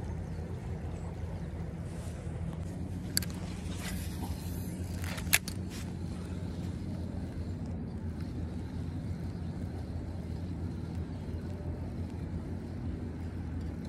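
Steady low rumble of wind on the microphone over flowing creek water, with two sharp clicks about three and five seconds in.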